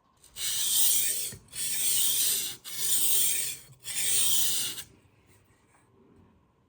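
Four sharpening passes of a sharpening stone along a knife edge on a guided knife sharpener: a steady abrasive rasping stroke of about a second each, with short breaks between them, the last ending about five seconds in.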